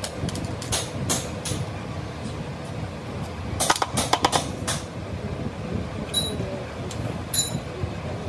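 A lead-soldering transformer machine hums steadily while its carbon electrode works on lead-acid battery plate straps. Sharp clicks and crackles come throughout, with a quick cluster about three and a half to four and a half seconds in.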